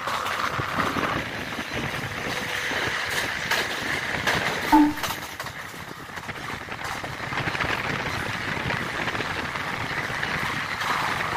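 Running noise and wind of a JNR 185 series train, heard through its open window as it passes through a station without stopping. A short, loud two-tone blip stands out about halfway through.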